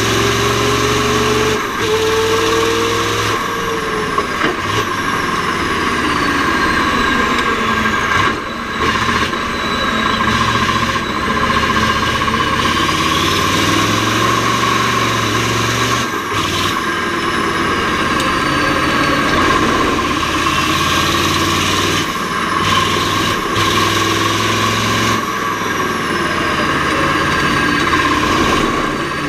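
Mack R-series V8 diesel race-truck engine running hard under load. The engine note changes pitch and dips briefly about three times, as at gear changes through the Roadranger gearbox.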